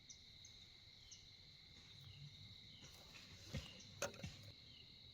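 Near silence in the woods: faint, steady trilling of insects, with short chirps about once a second. A few soft sharp clicks come about three and a half to four seconds in.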